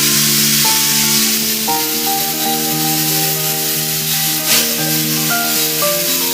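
Instrumental background music, a melody of held notes changing in steps, over a steady hiss.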